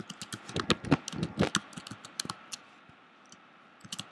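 Typing on a computer keyboard: a quick run of keystrokes for about two and a half seconds, a pause, then a few more keystrokes near the end.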